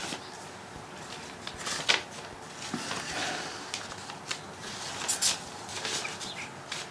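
Paper being handled: a run of short rustles and light clicks, irregular, as cards, stickers and envelopes are moved about.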